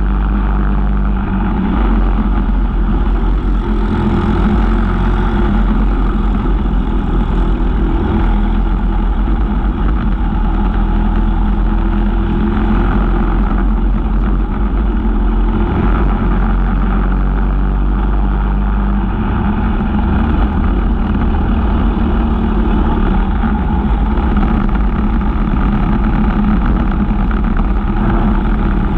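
Briggs & Stratton LO206 single-cylinder four-stroke kart engines running at race pace, heard from onboard a kart. The engine note shifts with the throttle through the corners, and other karts run close ahead.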